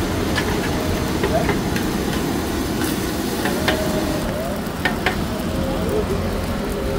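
Long metal spatula scraping and clanking irregularly against a large wok as a big batch of fried rice is stirred and turned, over a steady sizzle and the hiss of the stove's flame.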